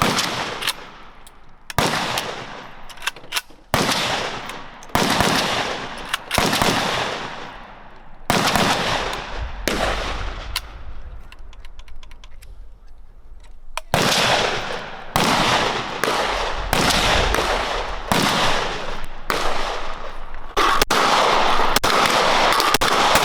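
Gunshots on a shooting range: loud single shots a second or two apart, each echoing off for about a second, with fainter shots from other lanes between them. There is a short lull near the middle, then the shots come faster.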